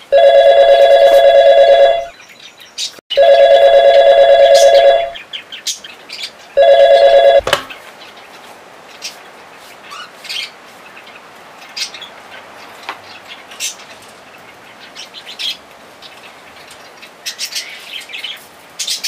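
A telephone ringing three times, a warbling two-note trill, the third ring cut short. Afterwards only a quiet background with scattered faint bird chirps.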